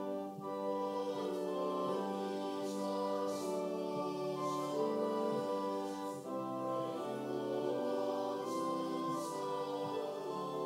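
Congregational hymn singing over sustained accompanying chords, slow and steady, one held chord to each sung syllable or two.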